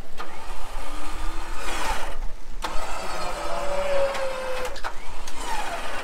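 The recovery wrecker's boom winch whining under load as it lifts the front of a broken-down rock buggy, its pitch sliding slowly. It stops briefly about two seconds in, then starts again.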